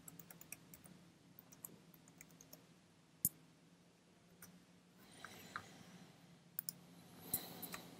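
Faint, scattered clicks of a computer keyboard being typed on, with one sharper click a little over three seconds in and a few more clicks near the end.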